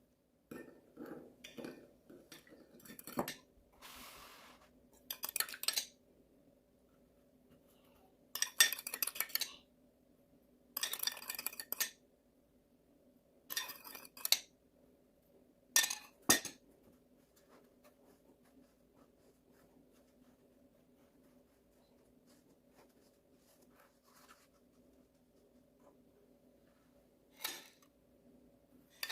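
Household items being handled: light clinks and rustles come in several short bouts, with one sharp click about halfway through. A faint steady hum lies underneath.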